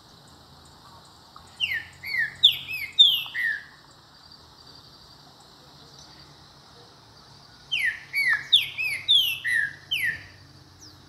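Trinca-ferro, a Brazilian saltator, singing two song phrases about six seconds apart, each a quick run of clear whistled notes that slide down in pitch.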